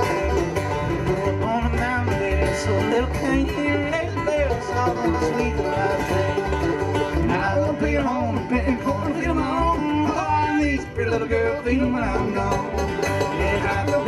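Live bluegrass band playing: banjo picking over acoustic guitar, with an upright bass plucking a steady low beat.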